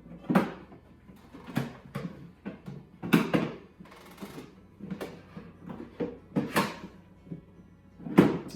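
Hands working a plastic Litter Genie pail and its packaging to pop it open: a dozen or so irregular knocks, scrapes and rustles.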